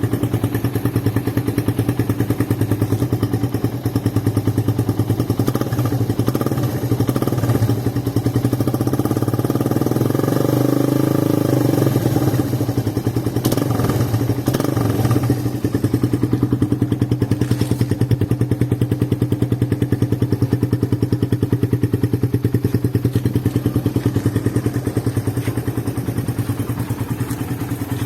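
Suzuki Raider 150 single-cylinder four-stroke engine idling steadily through a big-elbow header pipe and the stock muffler canister, revved up briefly partway through.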